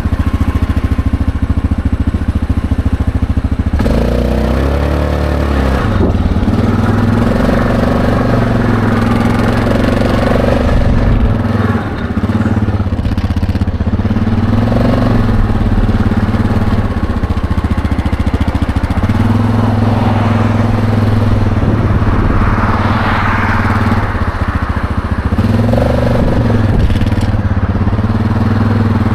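ATV engine running while the quad is ridden, its note rising and dropping as the speed changes.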